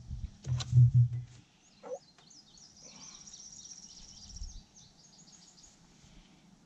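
A man's low hum lasting about a second and a half, then faint insects chirping in the background.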